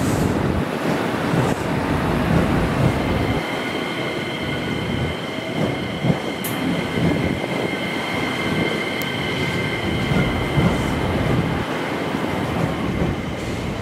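Electric train running past the platform as it pulls out of the station: a steady rumble with the clatter of wheels over rail joints. A steady high whine joins from about three seconds in.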